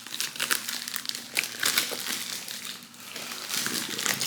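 Plastic packaging crinkling and crackling as it is handled, with many irregular small clicks.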